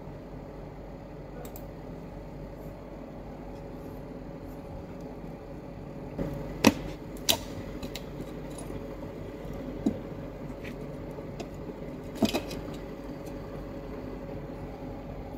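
Small phone parts being handled: the circuit board and ISP adapter board give a handful of sharp clicks and taps from about six seconds in. A steady low hum runs underneath.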